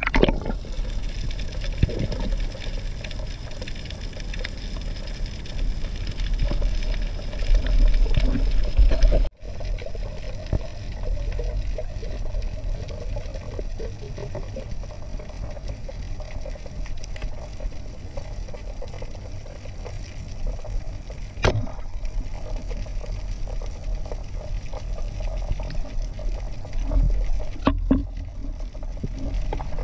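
Muffled underwater noise during a freedive: a steady low rumble of moving water, with a few sharp clicks or knocks, one about two-thirds of the way through and another near the end. The sound drops out for an instant about a third of the way in.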